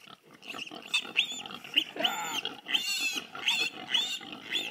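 Wild boar piglet squealing in a rapid run of short, high, arching squeals starting about a second in, with two longer squeals in the middle, as it is caught and handled.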